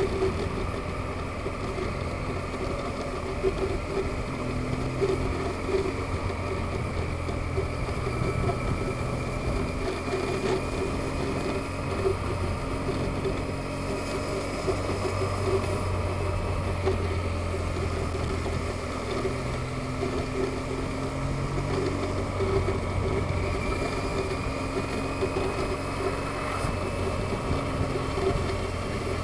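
Vehicle engine running steadily while driving, its pitch stepping up and down a few times as the speed changes.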